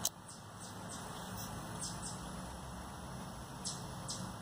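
Butane soldering iron burning with a faint steady hiss, over a low hum, with a sharp click at the start and a few soft ticks as the tip is worked.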